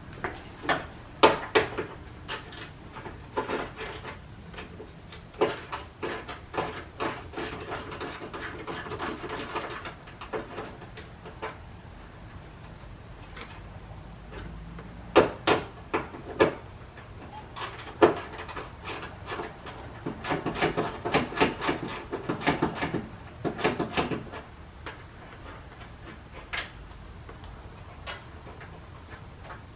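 Hand work on a car bumper's quick-release fasteners: irregular clicks, knocks and clatter of tools and small metal parts. There are two spells of denser rattling, about a quarter and about two-thirds of the way through.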